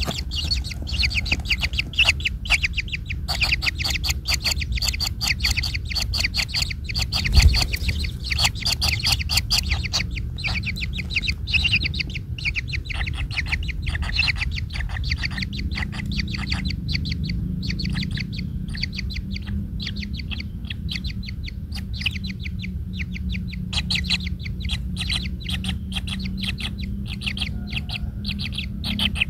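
A bird chattering in long runs of short, rapid chirps, over a steady low background hum, with a single low thump about seven seconds in.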